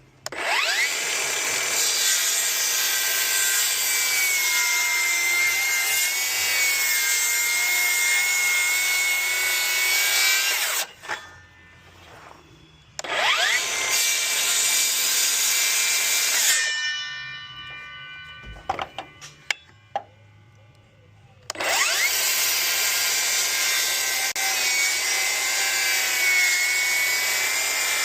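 Cordless Milwaukee M18 Fuel power saw cutting through rafter lumber in three cuts. Each cut starts with a quick rising whine as the motor spins up, then a steady whine runs through the wood. The first cut lasts about ten seconds and the second about three. After the second, the whine falls away slowly as the blade coasts down, with a few light knocks. The third cut starts about two-thirds of the way in and is still running at the end.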